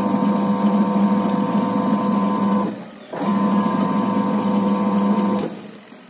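Sharp top-loading washing machine's wash motor humming steadily as it runs from a mechanical wash timer in place of the control module. It stops briefly about three seconds in, starts again, and cuts off near the end, the on-off rhythm of the wash agitation cycle. The motor is running on the new wiring.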